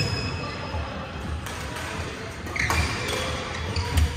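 Badminton rally: sharp pings of rackets striking the shuttlecock every second or so, short high squeaks of court shoes on the sports floor, and dull thumps of footwork.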